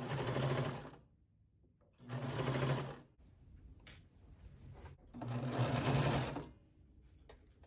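Electric sewing machine stitching fabric in three short runs of about a second each, its motor starting and stopping between them.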